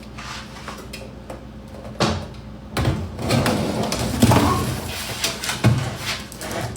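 Scattered knocks and clatter of kitchen work: pots, utensils and cupboard doors being handled.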